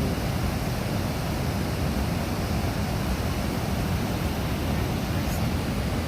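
Steady rush of a stream swollen high with rain water, flowing fast and strong.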